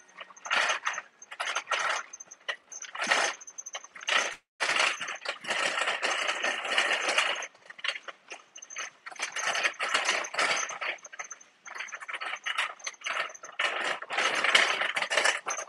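Wire shopping cart rattling and clattering as it is pushed across a hard store floor, in uneven bursts with short pauses.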